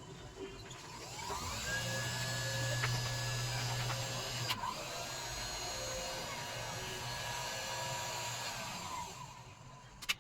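A small high-speed electric motor whining as it spins up about a second in, running with a brief dip in speed near the middle, then winding down near the end. A sharp click comes just before the end.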